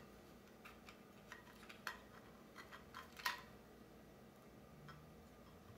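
Faint, scattered clicks and taps of 3D-printed plastic clock parts being handled and fitted together, the loudest a little over three seconds in.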